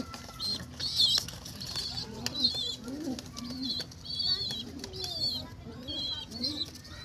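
Two domestic pigeons fighting, their wings flapping and clapping in sharp slaps, with low rising-and-falling pigeon calls. Short, repeated high-pitched bird chirps run throughout.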